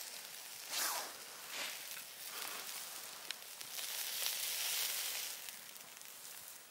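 Salmon fillet sizzling on a wire grill over charcoal: a steady high hiss with faint crackles that rises and falls in waves, loudest about four to five seconds in.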